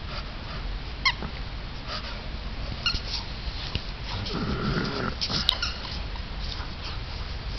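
Two dogs, a St. Bernard and a smaller hound, play-fighting: short high yelps about a second in and again around three seconds, then a low growl lasting about a second from about four seconds in.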